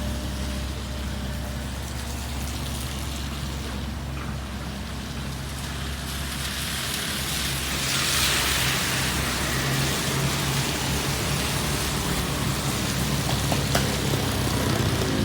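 Heavy diesel machinery engine running steadily, with a rushing hiss that swells about halfway through and a sharp click near the end.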